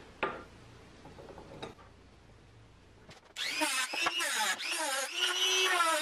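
Handheld rotary tool with an abrasive cutoff wheel starting up about three and a half seconds in and grinding through a steel nail, a steady high whine that wavers in pitch as the wheel bites. Before it, a light click and a few faint handling sounds.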